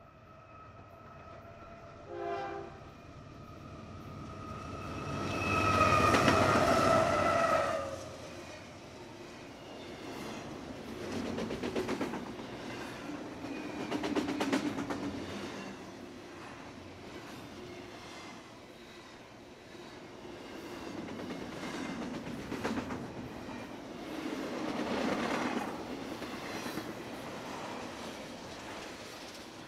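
Freight train locomotive horn sounding as the train approaches, faint at first and loudest in a long blast from about six to eight seconds in. Then the double-stack container cars roll past, rumbling, with wheels clicking over the rail joints in swelling waves.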